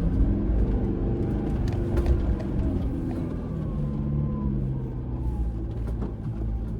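Toyota Fortuner's engine pulling under load through soft sand, its revs rising and falling, over a steady low rumble with a few sharp knocks as the vehicle bumps over the uneven track.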